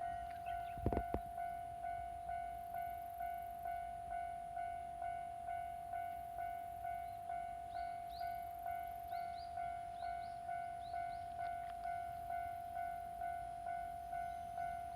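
Railway level-crossing warning bell ringing: an electronic ding repeating evenly a little under twice a second. There is a short knock about a second in.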